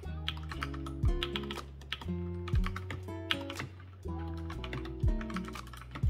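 Typing on an Akko 3108v2 mechanical keyboard fitted with TTC Gold Pink linear switches: a quick, uneven run of key clacks. Background music with bass notes and a beat plays under it.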